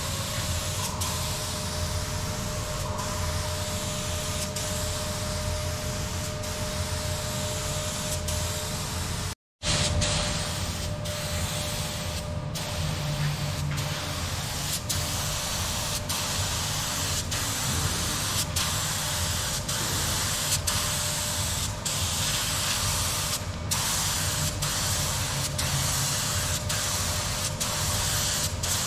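Paint spray gun spraying a steel boat hull: a steady hiss, with a faint steady hum beneath it and a brief gap about ten seconds in.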